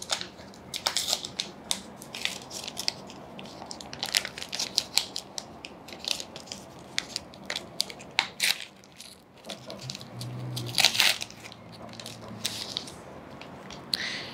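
Sterile suture packet being torn and peeled open by hand, its paper-and-plastic wrapper crinkling and tearing in irregular crackles, louder near the end.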